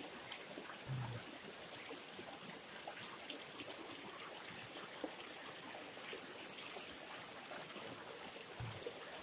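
Faint, steady rushing of a river flowing, with a soft low bump about a second in.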